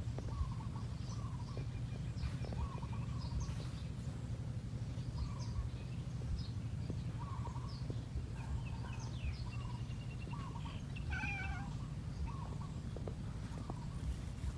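Birds calling in the background: short chirps repeated throughout, with one longer call about eleven seconds in, over a steady low hum.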